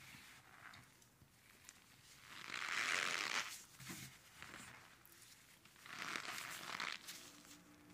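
Cornstarch-topped ice crunching twice, each a long crackly crunch lasting about a second, the first about two seconds in and the second near the end.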